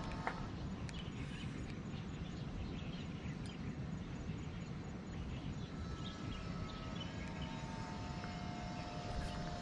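Steady low rumble of wind buffeting the microphone, with a few faint thin steady tones coming and going.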